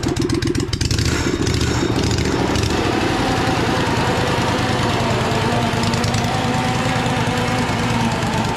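V-twin engine of a homemade amphibious ATV running steadily as it drives across grass, with a loud chain drive; a faint clicking rattle sits over it in the first couple of seconds.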